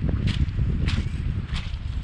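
Footsteps crunching on loose river pebbles, three steps about two thirds of a second apart, over a steady low rumble.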